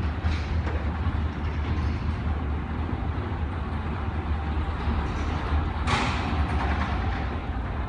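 Electric opener of a sectional overhead garage door running, with the door panels rumbling steadily along their tracks over a low motor drone. About six seconds in a louder rattling rush starts suddenly and fades over about a second.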